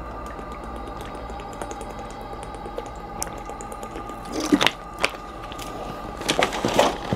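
Scattered sharp clicks and knocks of small objects being handled, clustered about four and a half seconds in and again near the end, over a steady two-note droning hum.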